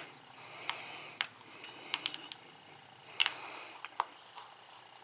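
Light handling noise on a small electronic device: a few short, sharp clicks and taps, spaced irregularly, from fingers and a small screwdriver on the Sansa Clip+'s circuit board and plastic case.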